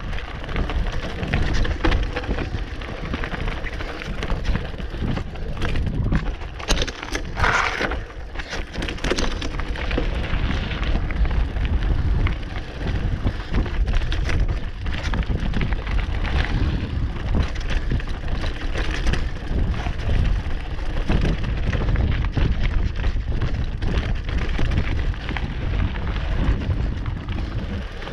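Hardtail mountain bike (Commencal Meta HT AM) riding a rocky dirt trail: continuous wind buffeting on the camera microphone over the rumble of tyres on rock and dirt, with frequent rattles and knocks from the bike.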